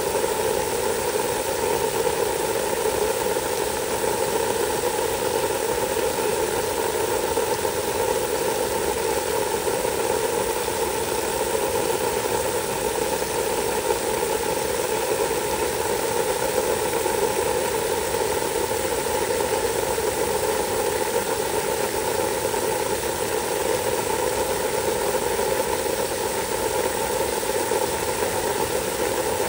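Water spraying steadily onto charred wood mulch: an even hiss with a constant hum underneath, unchanging throughout.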